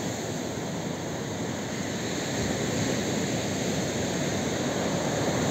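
Steady rush of surf on the shore.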